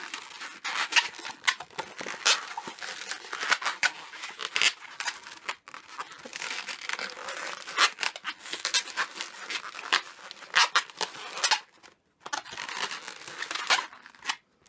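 Inflated latex twisting balloons squeaking and rubbing against each other as hands squeeze and push a leftover balloon end into the body of a balloon figure. A busy, irregular run of short rubbing squeaks, with brief pauses near the end.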